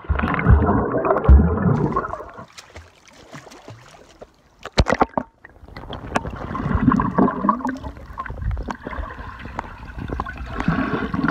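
Swimming-pool water heard from underwater: muffled churning and bubbling, loudest in the first two seconds, then softer gurgling and sloshing, with a couple of sharp knocks about five seconds in.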